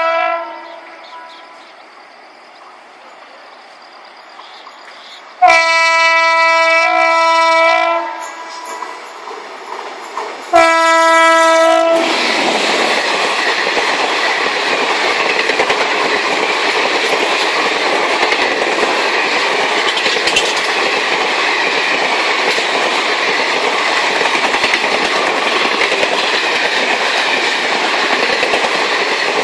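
Indian Railways locomotive horn sounding twice, a blast of about two and a half seconds and then a shorter one, followed by the loud, steady noise of the train running on the tracks.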